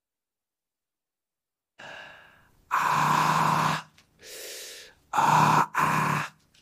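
A person's voice making a run of loud, breathy sounds, each under a second long, starting about two seconds in after a stretch of silence.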